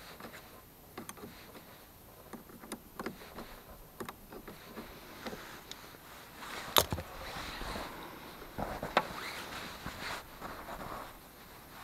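Scattered light clicks and rustling from someone moving and handling things, with one sharp knock about seven seconds in.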